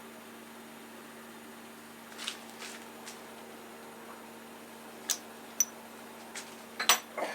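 Metal workholding pieces being handled on the machine table: a scattering of light clicks and knocks, the sharpest just before the end, over a steady electrical hum.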